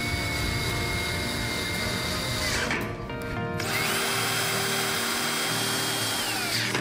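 Yellow DeWalt cordless drill driving screws into a metal grill leg frame. The motor whine rises, holds steady for about two and a half seconds and winds down, then after a short pause a second, higher-pitched run lasts about three seconds.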